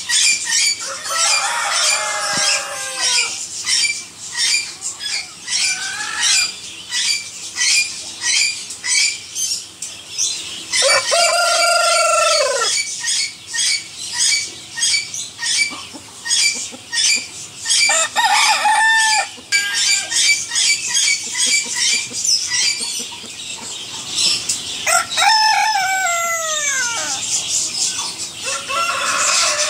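Silver laced Polish chickens calling: one long rooster crow that falls in pitch at its end about a third of the way through, and several shorter falling calls, the last ones near the end. Behind them runs a steady rapid high chirping, about two chirps a second.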